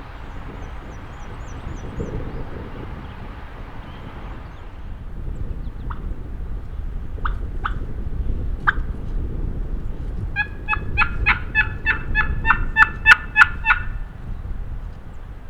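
Wild turkey calling: a few sharp clucks, then a run of about fourteen yelps at roughly four a second, loudest near the end. Wind rumbles on the microphone underneath.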